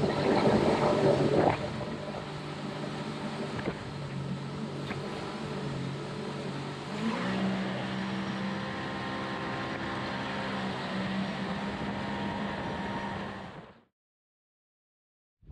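A boat's 250-horsepower outboard engine running at speed, a steady drone that steps up in pitch about halfway through as the throttle opens. The sound cuts off abruptly near the end.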